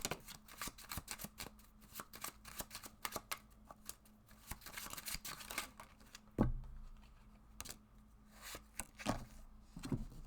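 Tarot cards being shuffled by hand: a quick run of soft card flicks, then a few dull knocks, the loudest about six seconds in.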